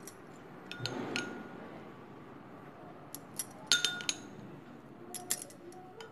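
Light clinks of glass kitchenware: two about a second in, a louder cluster in the middle, and a couple more near the end.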